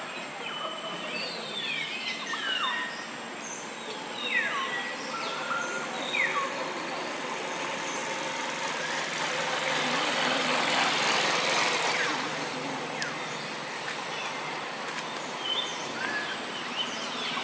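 Outdoor ambience: several short, falling chirps in the first few seconds, then a swell of rushing noise that rises, peaks past the middle and fades, with a few faint chirps near the end.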